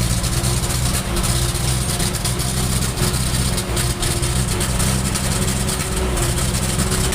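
Isuzu 4HG1 four-cylinder diesel engine idling with a misfire, its steady running broken by irregular knocks.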